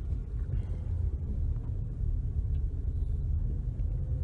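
Steady low rumble of a car heard from inside its cabin as it pulls in at low speed.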